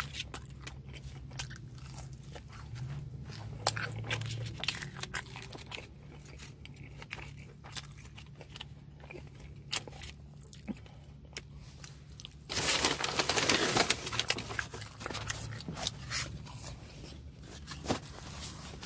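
Close-up eating sounds: crispy chicken nuggets crunched and chewed in small crackly bites, over a steady low hum. About two-thirds of the way through a louder burst of noise lasts about a second and a half.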